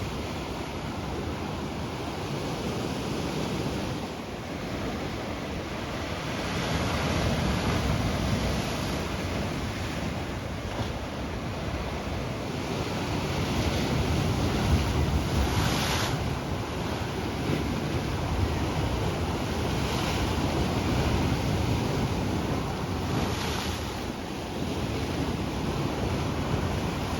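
Ocean surf washing in and out, swelling and easing every few seconds, with wind rumbling on the microphone.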